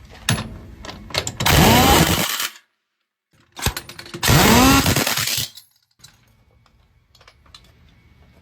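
A power tool run in two short loud bursts, its pitch sweeping up and then down in each, with scattered clicks and knocks around them.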